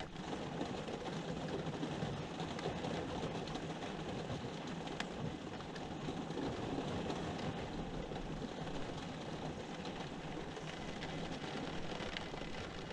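Steady rain pouring down, an even hiss with scattered faint drop ticks and a steady low hum underneath.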